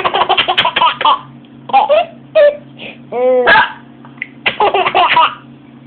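Young child laughing hard in several bursts of quick, pulsing giggles, set off by hiccups. A short hiccup-like sound comes a little past three seconds in.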